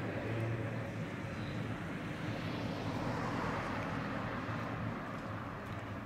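Vintage electric tram running slowly on street track: a steady low hum with a rumble of motors and wheels.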